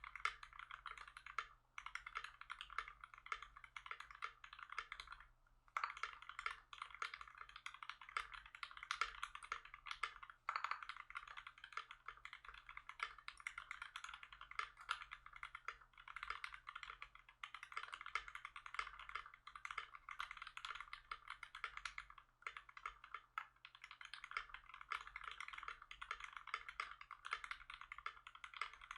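Steady fast typing on a custom mechanical keyboard, a KBD67 MKII with a polycarbonate case, brass plate, GMK keycaps and Krytox-lubed Tangerine linear switches: a dense run of keystroke clacks with a few brief pauses, one about two seconds in and one around five and a half seconds.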